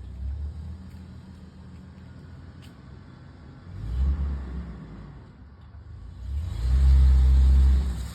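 Muscle car's engine running with a low rumble, with a short burst of throttle about four seconds in and a longer, louder one held for over a second near the end.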